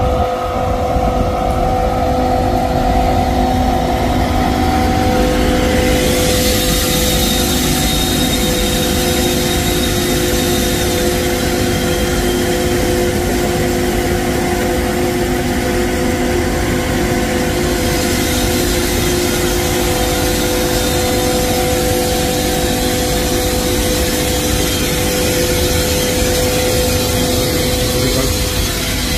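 Class 18E electric locomotives standing close by with their on-board equipment humming steadily: several held tones over an even rushing noise, with a brighter hiss added in the middle stretch.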